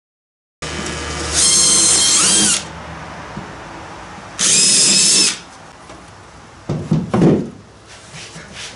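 Cordless drill running in two short bursts of about a second each, drilling pilot holes through the boat's wooden bottom, its whine wavering in pitch as the bit cuts. A few knocks follow near the end.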